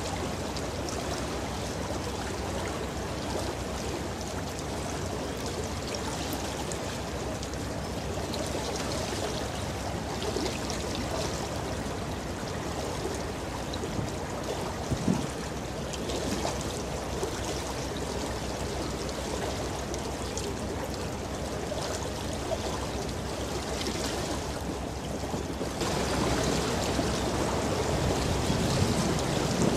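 Steady rushing, splashing water from a container ship's bow wave and wash. The sound grows slightly louder near the end.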